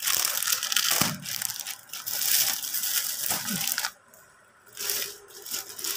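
Clear plastic packaging on folded suits crinkling and rustling as hands handle and shift the packets, with a brief pause about four seconds in.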